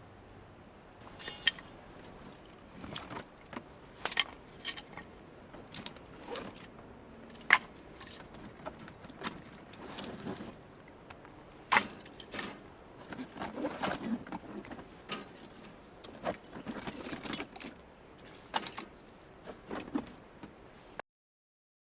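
Irregular clinks, knocks and clatter of objects being handled, with a brief metallic jangle about a second in; the sound cuts off abruptly near the end.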